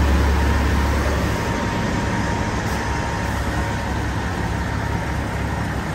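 Peterbilt 389's diesel engine idling: a steady low rumble under an even hiss.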